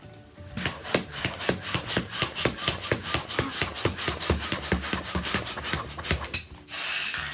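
Latex balloon being stretched and worked between the hands before inflating, making rapid squeaky rubbing strokes, about four a second. Near the end there is a short hissing rush.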